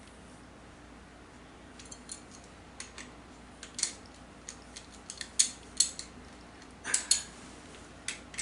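Metal hand tools clinking and clicking on metal as a wrench snugs a fastener during an ATV rebuild. The sound is a string of irregular sharp metallic clicks that starts about two seconds in.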